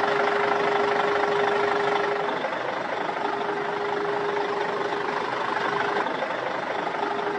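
Truck engine running steadily at idle. A constant hum drops out twice and comes back.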